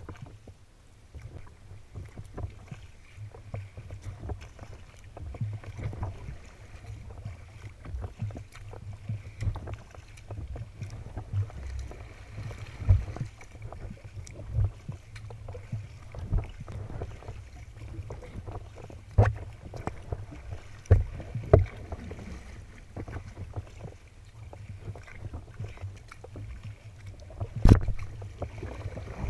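Water sloshing and splashing against the hull of a sea kayak moving through choppy waves, with a low rumble of wind on the microphone. Sharp slaps of waves hitting the bow come every few seconds, the loudest one near the end.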